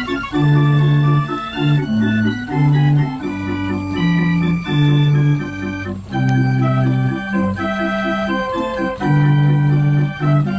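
Mechanical street organ, a pipe organ played automatically, playing a tune. Held pipe notes carry the melody over an oom-pah accompaniment of low bass notes alternating with short chords.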